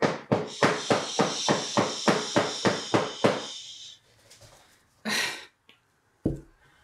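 Silicone-lined wooden loaf mold full of fresh cold process soap batter, tapped rapidly against the floor, about three knocks a second for three seconds or so, to bring up and release trapped air bubbles. A single thump follows near the end.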